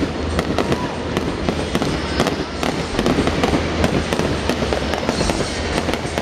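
Fireworks display: a continuous, rapid barrage of bangs and crackling from aerial shells bursting and comets rising.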